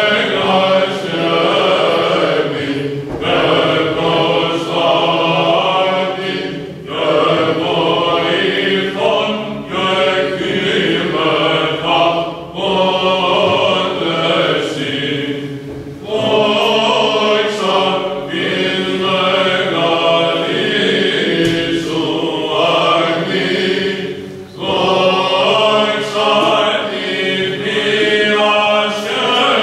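Greek Orthodox Byzantine chant sung by several voices, in long phrases with brief pauses between them.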